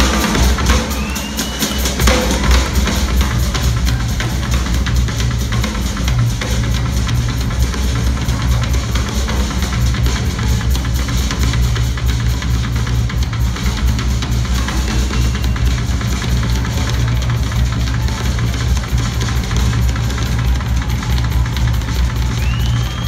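Drum-kit solo played live: fast, dense playing with rolls across the kit over an almost continuous, heavy bass-drum rumble.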